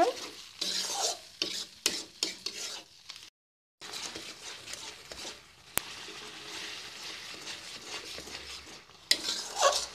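Spice paste of onion, tomato, ginger and garlic sizzling in hot mustard oil in a metal kadai while a metal spatula scrapes and stirs it in irregular strokes. The masala is being fried down until the oil separates. The sound cuts out for a moment just after three seconds, goes on as a softer steady sizzle, and the stirring strokes return near the end.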